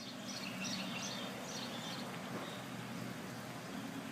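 Small birds chirping, short repeated chirps about twice a second, faint over a steady low hum.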